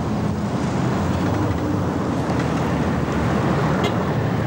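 Street traffic: vehicle engines running with a steady hum of road noise.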